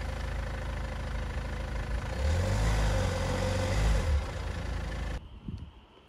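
Car engine running and revved harder for about two seconds as the driver tries to reverse a car that is stuck with one wheel in the air, so the wheel spins without grip. The sound cuts off suddenly about five seconds in.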